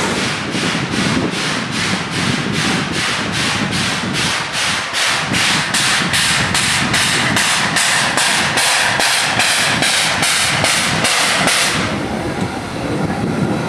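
Shay geared steam locomotive exhausting in steady, evenly spaced chuffs, about two and a half a second. The chuffing cuts off suddenly about twelve seconds in, leaving a lower rumble.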